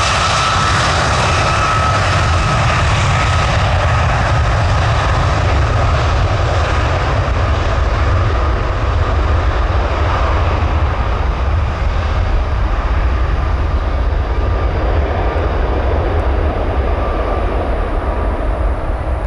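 Jet airliner engines passing close, a loud steady rush with a faint whine in the first seconds. The high hiss fades gradually as the aircraft moves away, leaving a deep rumble.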